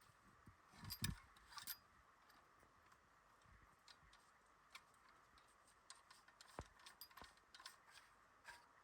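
Near silence broken by sparse faint clicks and light knocks, irregularly spaced, the loudest about a second in.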